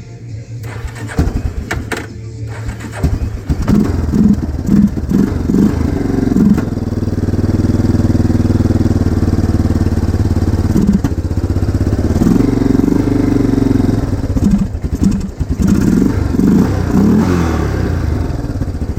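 Yamaha Big Bear 350 quad's single-cylinder four-stroke engine cranking and catching, then running and being revved in short blips several times.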